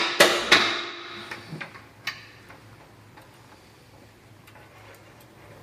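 Sharp clacks and knocks of the bike lift's trolley being worked into its metal wall track: a few close together within the first second and one more about two seconds in, then faint light ticks.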